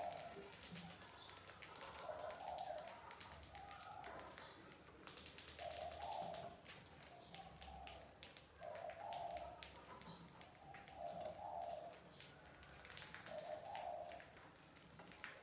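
A dove cooing again and again, a short coo every second or two. Faint scattered clicks and scratches run under it, from rats scrabbling about.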